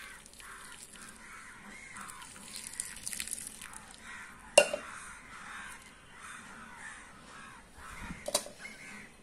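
Crows cawing repeatedly in the background, with a single sharp knock a little past halfway through.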